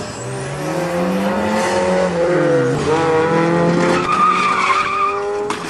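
Mazda RX-7's rotary engine revving hard, its pitch climbing, dipping about halfway through and climbing again as the car is thrown around a cone course. Tyres squeal in a long wavering squeal as the car slides, from about four seconds in until just before the end.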